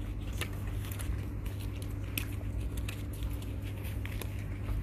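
Clothing-shop background noise: a steady low hum with scattered light clicks and rustles.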